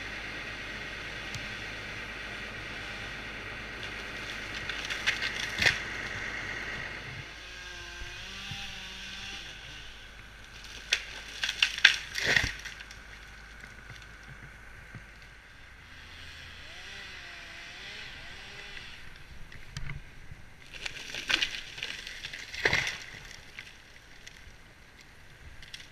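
Footsteps crunching and scraping in snow, coming in three short bunches over a steady hiss.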